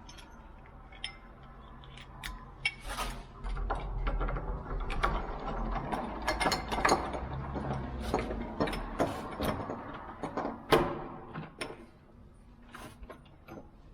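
Metal clicking and rattling of a lever door lock's key cylinder being worked by hand, the key turned and jiggled in a spinner cylinder that will not release it. The clicks are busiest in the middle and thin out near the end.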